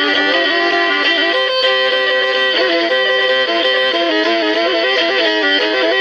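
Black Sea kemençe, the small three-stringed pear-shaped fiddle of the Turkish Black Sea coast, bowed in a continuous folk melody of quick-changing notes, sounded on two or more strings at once.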